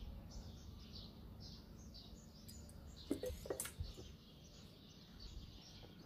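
Faint, repeated short bird chirps in the background, with a few light clicks a little past halfway.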